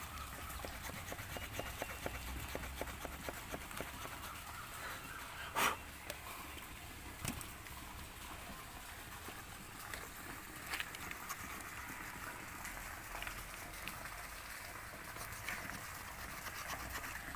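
The small folding wood saw of a Victorinox Huntsman Swiss Army knife rasping back and forth through a thick green branch of about 8 cm, in a run of quick strokes, with a few sharper knocks, louder about six seconds in.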